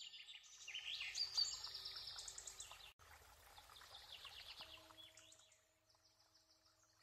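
Small songbirds chirping and trilling in quick, high-pitched phrases, with a brief break about three seconds in, thinning out after about five and a half seconds.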